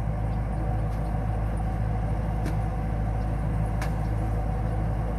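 Kubota DC-105X rice combine harvester running steadily while harvesting, its diesel engine and threshing gear giving a constant low drone. Two faint clicks come about two and a half and four seconds in.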